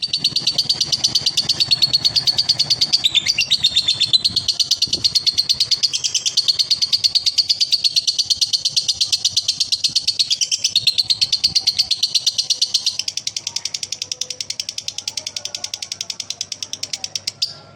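Male lovebird giving a long 'konslet' ngekek: a fast, unbroken chatter of harsh high notes many times a second, cut off abruptly near the end.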